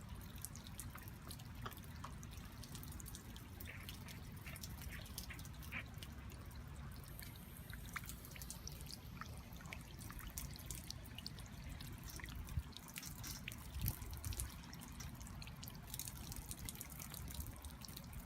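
Water trickling and dripping down a rain chain of wire-linked holey rocks, in many small irregular drips and splashes over a low steady rumble.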